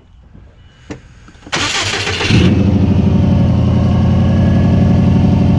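2002 Subaru WRX's turbocharged flat-four engine cranked by the starter about a second and a half in, catching within a second and settling into a steady idle. The engine is misfiring, which the owner traced to a failed idle air control valve.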